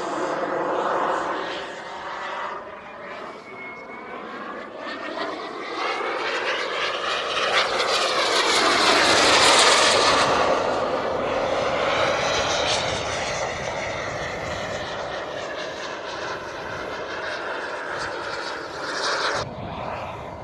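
Radio-controlled model airplane flying past. Its engine note rises in pitch and grows loud as it comes in, is loudest about halfway through, then drops in pitch and fades as it moves away.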